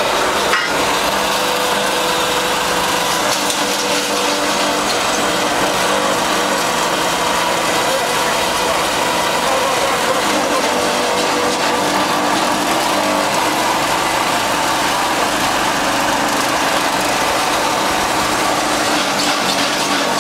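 Electric-motor-driven hammer mill running steadily while grinding log bark into sawdust: a loud, even machine din with steady hum tones.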